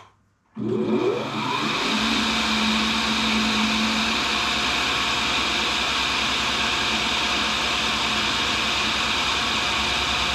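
Tool and cutter grinder motor switched on about half a second in. The abrasive wheel spins up to speed over about a second with a rising whine, then runs steadily with a continuous hum.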